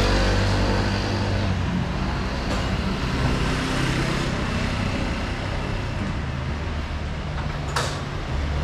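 Street traffic: a passing motor vehicle's engine hum fades over the first second or so, leaving steady road noise, with a short sharp click near the end.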